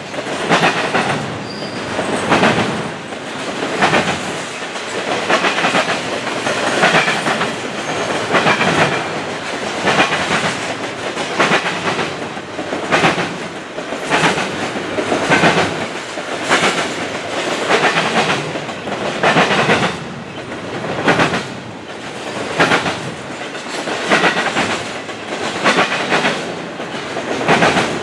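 Double-stack intermodal container train rolling past, its well-car wheels clattering over rail joints in a steady rhythm that swells about once a second.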